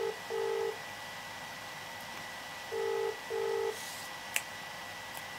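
British telephone ringing tone heard down the line while a call connects: the double ring twice, each a pair of short steady low tones, about three seconds apart, over a faint steady line whine. A single click about four seconds in.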